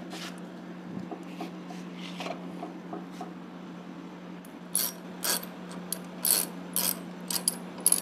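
Hand socket ratchet clicking in short, irregular strokes as it tightens the seat-mounting nut on a motorcycle, starting about halfway through, over a steady low hum.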